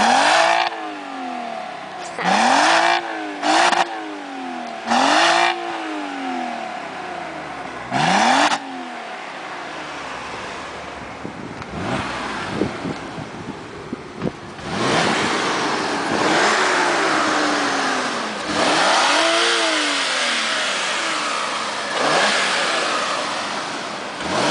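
Audi S4 engine revved through its stock exhaust. First come about five quick throttle blips, each rising and falling in pitch, then a lull, then longer, louder revs held for several seconds at a time in the second half.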